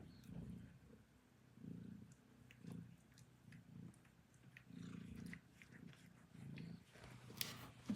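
Domestic cat purring close by, the purr swelling and fading in a steady rhythm with each breath, about once or twice a second. Faint ticks through it, and a sharp click near the end.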